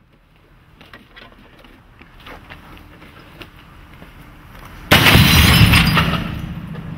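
A CRT computer monitor thrown from a height smashes on the ground about five seconds in: one sudden loud crash of breaking glass and plastic that dies away over about a second and a half. Faint knocks and rustles come before it.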